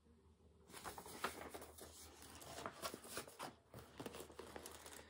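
Paper rustling and handling noises with small clicks and knocks, starting about a second in, as a printed cross-stitch chart is set down and craft materials are handled on the table.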